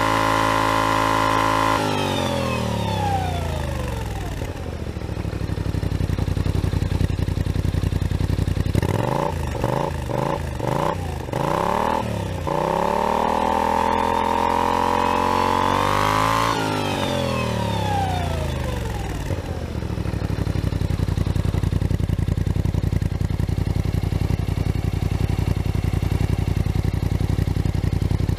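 Kymco AK 550i scooter's parallel-twin engine through an Akrapovic slip-on exhaust, revved standing still: a held high rev that falls away, a run of quick throttle blips, a second held rev that climbs a little and drops back, then a steady idle. The exhaust is new and not yet run in.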